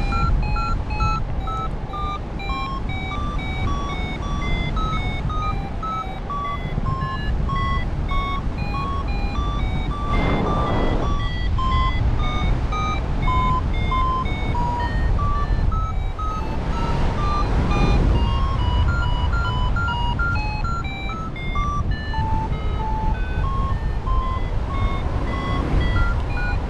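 Paragliding variometer beeping in short, evenly spaced tones, about two a second, its pitch wandering up and down with the climb rate: it is signalling lift in a thermal. Steady wind rushing over the microphone underneath.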